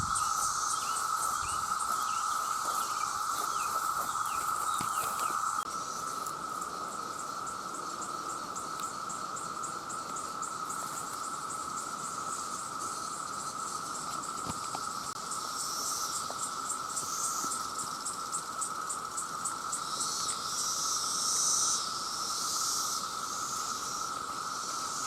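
A chorus of many cicadas making a steady, unbroken drone, with a faster, high-pitched pulsing insect call repeating over it.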